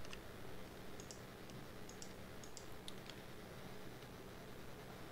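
Faint, scattered clicks of a computer mouse and keyboard, about a dozen of them in the first three seconds, over a low steady hum.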